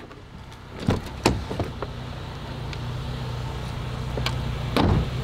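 A car door being opened from inside, with several sharp clicks and knocks from the latch and handle. Under it a car engine idles with a steady low hum that grows louder once the door is open.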